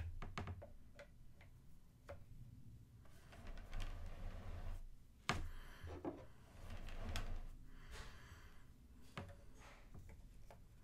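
Faint scattered clicks and taps with soft scuffing, as the hands of a collectible statue are handled and pushed onto its arms.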